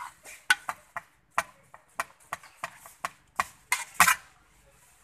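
Metal spoon stirring minced chicken larb in a plastic basin: a run of irregular clicks and clacks as the spoon knocks and scrapes the basin, loudest about four seconds in.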